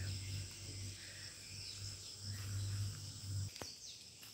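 Insects chirring steadily in high tones over a low, on-and-off rumble, with a single click about three and a half seconds in.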